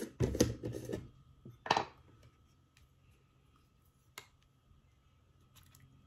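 A plastic screw lid twisted off a large plastic jar, with rough scraping in the first second and a sharper sound about 1.7 s in as it comes free. After that, only a few faint clicks follow.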